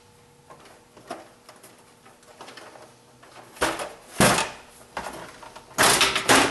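Sheet-metal cover panel of a Sony five-disc CD changer being handled and lifted off its chassis: a few light clicks, then two loud bursts of clatter, one about four seconds in and one near the end.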